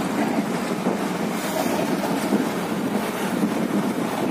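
Steady running of a fishing trawler's diesel engine at sea, mixed with wind buffeting the microphone and the wash of the sea.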